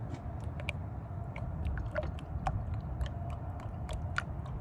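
Transmission fluid being poured into the transmission, with irregular small clicks and brief gurgles over a steady low rumble.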